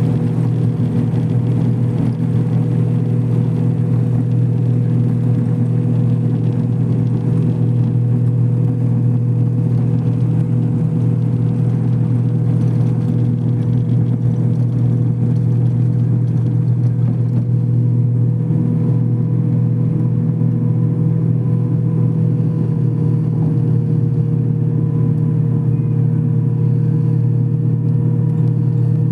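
Airliner cabin noise: a steady low engine and airflow drone with a constant hum above it, unchanging throughout.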